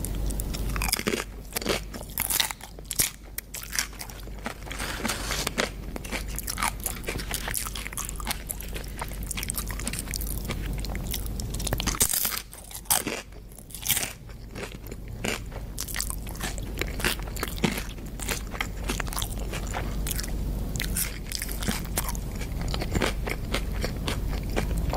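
Close-miked ASMR eating: repeated crisp crunching bites and chewing, with a few louder crunches about halfway through.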